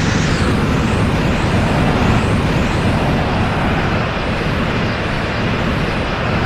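Dragon Ball Z-style 'Potential Unleashed' power-up sound effect without the aura burst: a loud, steady, rumbling energy drone, with airy swishes sweeping through the high end about once a second, the sustained aura sound of a character powered up.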